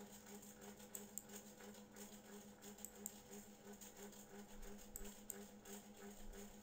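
Near silence: a faint low hum that pulses evenly, with faint scattered ticks.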